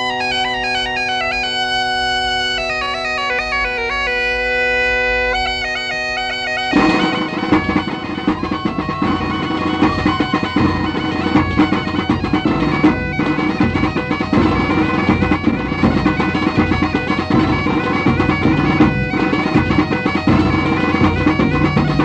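Galician bagpipes playing folk dance music: a steady drone under a quick chanter melody. About seven seconds in, the full band comes in, thicker and with a driving beat, for the dance tune.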